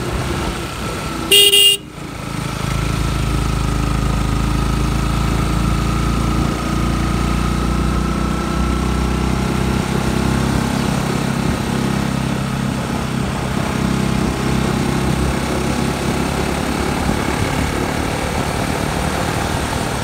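A motorcycle engine running steadily while riding, with a single short, loud horn beep about a second and a half in.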